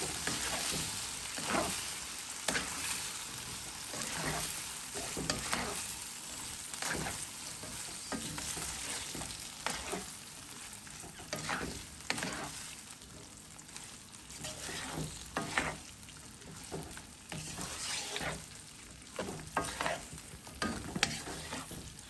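Black spatula stirring and scraping sauce-coated chicken and vegetables in a nonstick wok, a scrape or toss every second or so, over a steady sizzle that slowly fades.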